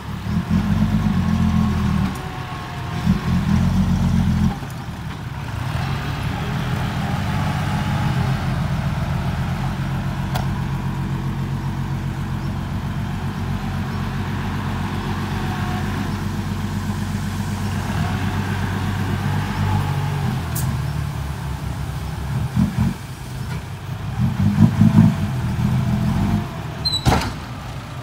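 Isuzu Forward dump truck's diesel engine, revving in surges as it reverses, then running steadily at raised revs while the hydraulic hoist tips the bed to dump its load of soil, with more surges of revving near the end.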